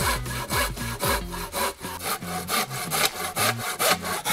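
Silky BigBoy folding hand saw cutting a straight cut into a wooden log, in quick, even back-and-forth strokes about three a second.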